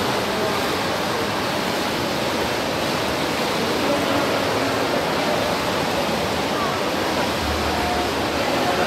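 Indoor swimming-pool hall noise during a race: a steady wash of water splashing from swimmers, with faint voices in the background.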